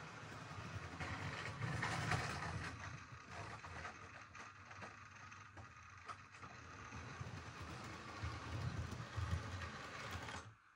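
Model train running on the layout: a steady low motor hum with the wheels rattling on the rails and scattered clicks, cutting off abruptly near the end.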